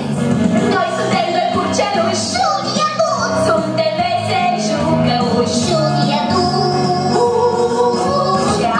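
A song, with a voice singing over instrumental accompaniment, for a stage dance number.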